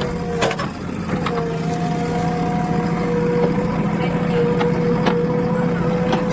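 JCB 3DX backhoe loader's diesel engine running steadily under load, with a steady whine over it and a few sharp knocks spread through.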